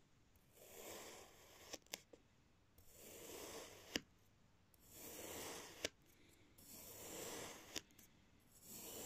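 A knife blade sliding down through kinetic sand, slicing off one slab after another: a soft, faint gritty hiss about every two seconds, each cut ending in a sharp click as the blade meets the board.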